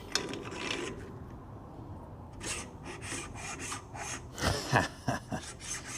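A ball bearing being worked onto a freshly spray-welded and machined steel shaft: irregular metal-on-metal scraping and rubbing with a few sharp knocks a little after the middle, as the bearing slides onto the repaired journal.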